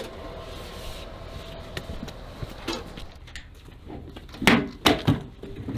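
Hellfire missile being handled onto an MQ-9 Reaper's underwing launcher rail: steady low background noise, then a few sharp clunks about four and a half seconds in, two close together and a smaller one just after.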